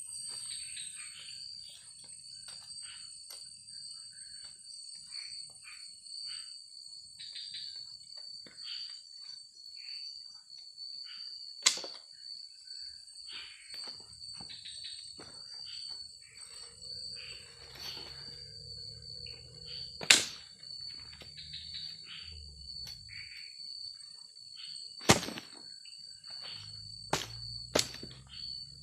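Insects chirring in a steady high-pitched drone, with scattered small rustles and five sharp cracks or knocks spread through, the loudest sounds, two of them close together near the end.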